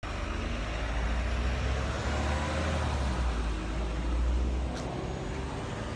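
Low rumble of road traffic, a motor vehicle passing close by and easing off about three-quarters of the way through, with a short click near the end.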